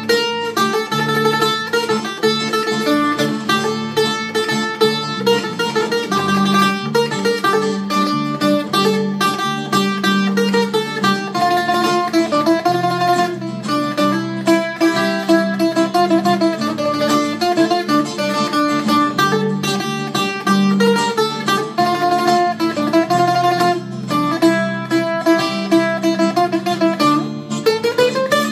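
Greek bouzouki played solo: a picked melody of quick single notes, with longer notes sustained by rapid tremolo picking.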